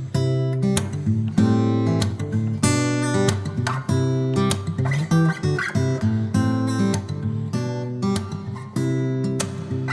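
Background music: strummed acoustic guitar, with a new chord about every half second.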